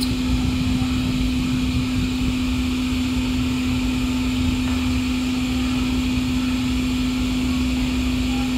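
A steady mechanical hum holding one pitch, over a low rumble.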